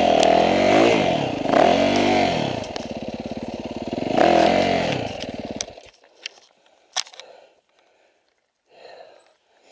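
Yamaha dirt bike engine revved in repeated short bursts, then cutting out abruptly about six seconds in; after that only faint clicks and rustles.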